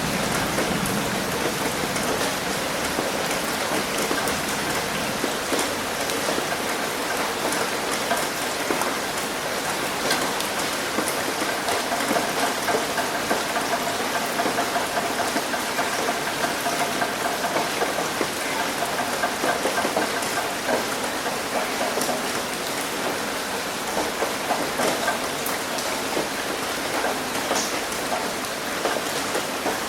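Steady rain falling: a dense, even hiss of drops, with scattered sharper ticks of individual drops.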